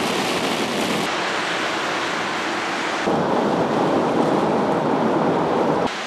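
Heavy rain and the rushing hiss of traffic driving through standing water on a wet freeway. It changes abruptly about one second and three seconds in, is loudest and densest from three seconds on, and drops suddenly just before the end.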